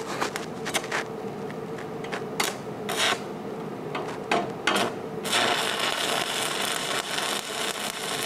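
Stick (SMAW) welding arc from a Longevity Migweld 200S burning on carbon steel angle: scattered sharp pops at first, then a steady, dense crackle from about five seconds in as the arc settles into a continuous burn.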